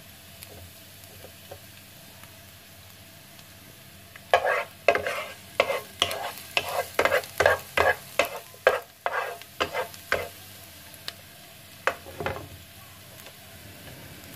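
Chopped garlic frying in a little oil in a frying pan, with a faint steady sizzle. From about four seconds in, a wooden spatula stirs it: a quick run of scrapes and taps against the pan for about six seconds, then one more tap near the end.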